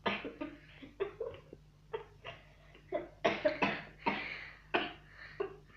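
A person in a coughing fit: a long, irregular run of short coughs, some in quick pairs, close to choking.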